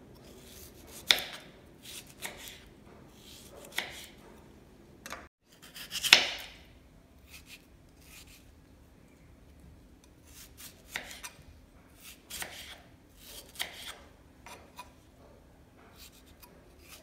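Kitchen knife slicing a tomato into wedges on a wooden cutting board: irregular knocks of the blade against the board, a second or two apart, the loudest about six seconds in.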